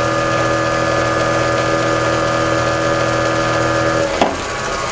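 Electric motor and belt-driven rotor running steadily with a humming whine. About four seconds in there is a click and the whine cuts off as the power cord is pulled from the outlet, while the machine keeps turning with a rougher, lower running sound.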